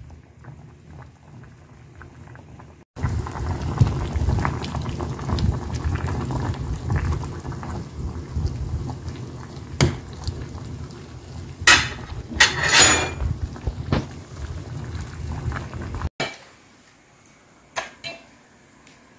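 Doenjang-jjigae (soybean paste stew) boiling hard in a metal pot: a dense bubbling full of small pops, with a few loud sharp clatters around the middle. It stops suddenly, leaving quiet room tone and a couple of light clicks near the end.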